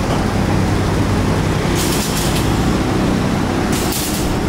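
Steady low machine hum in a welding shop, with two short hissing crackles of a MIG (wire-feed) welding arc, about two seconds in and again near the end.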